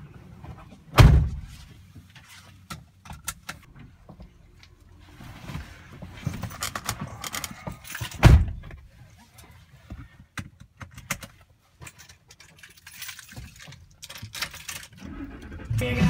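Two heavy thumps about seven seconds apart, the doors of a Ford pickup truck shutting as people get into the cab, with small clicks and rustling in between.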